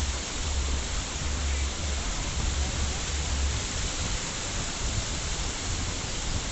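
Steady, even hiss like rain or running water, with a low rumble underneath that dies away after about three and a half seconds.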